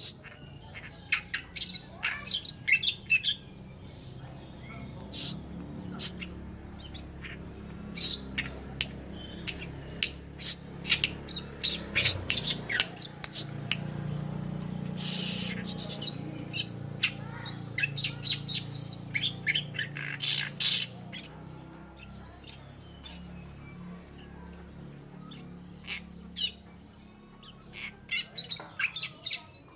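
Oriental reed warbler singing: bouts of rapid, harsh chattering phrases with pauses between, over a low steady hum.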